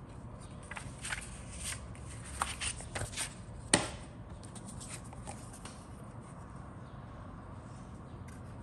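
Paper handling: a folded plastic-kit instruction sheet and a glossy decal sheet rustling and tapping against a cutting mat as they are moved. It is a run of short rustles and light taps over the first four seconds, the sharpest a little under four seconds in, then faint handling.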